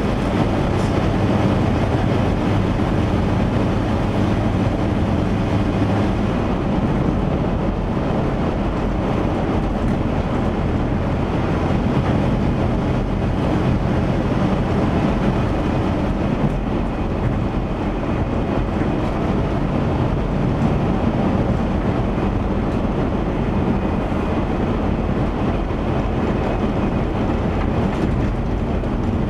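1977 Chevy van on the move, a steady engine drone and road rumble heard from inside the cab, its exhaust now running quietly after a leaking exhaust donut and rusted-out mufflers were replaced. The low drone shifts about six seconds in.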